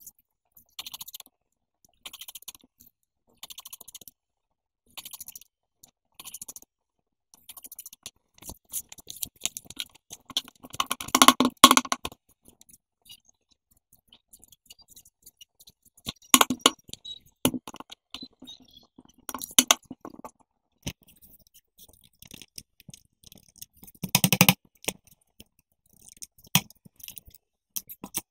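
Scissors snipping through a stack of paper, one short crisp cut about every second and a half. Then comes irregular crackling and rustling as the stacked sheets are flexed and handled, with two louder bursts of it.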